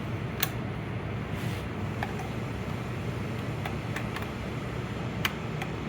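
Steady low machinery hum of a building's generator room, with a few light clicks and taps scattered through it.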